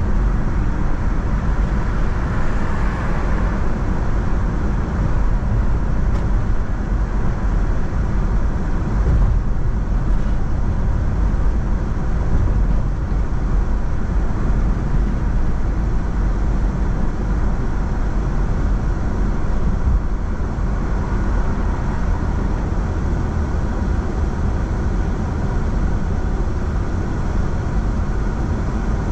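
Steady road noise from a car being driven: a continuous low rumble of tyres and engine, with no distinct events.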